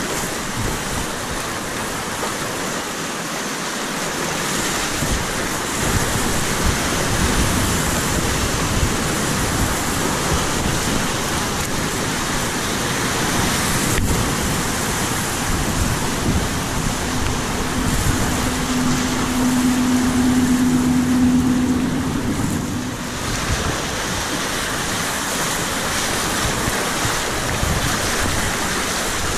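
Whitewater rapids rushing and splashing around a kayak, close to the microphone.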